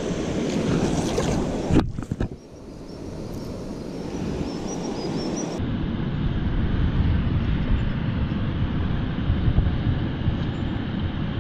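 Steady wind noise buffeting the microphone over the rush of flowing river water. A sharp knock comes a little under two seconds in, after which the noise dips for a moment and builds back.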